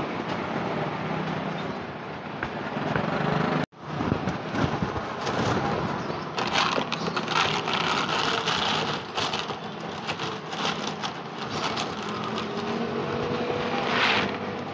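Dry cat kibble poured from a plastic bag into a clear plastic tray, with many quick crackling rattles and rustling of the bag, over steady street traffic. The first few seconds hold only the traffic, broken by a sudden brief dropout.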